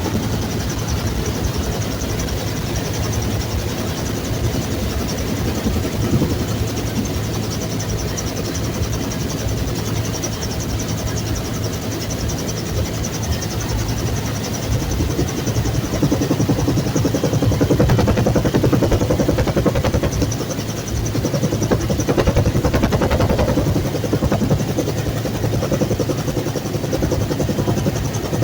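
Bell UH-1 Huey helicopter running, a loud continuous rotor and turbine noise with a fast, steady beat; it gets somewhat louder about halfway through.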